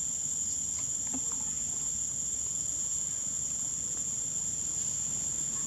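Steady, high-pitched drone of insects, holding one even pitch throughout.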